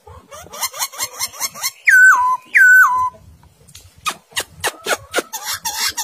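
Caged laughingthrush (poksay) singing: quick chattering notes, then two loud clear whistles that each drop in steps, then a run of sharp down-slurred notes and rapid repeated phrases near the end.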